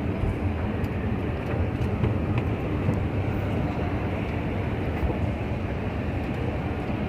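Steady low rumble of a moving vehicle, even throughout, with a few faint ticks.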